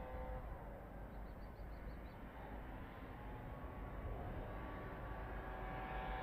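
Low, steady rumble of the erupting Cumbre Vieja volcano, with a faint drone that comes and goes over it.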